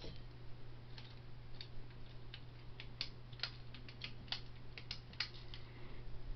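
Harbor Breeze Armitage 42-inch ceiling fan running on medium speed: a steady low hum with irregular light clicks and ticks.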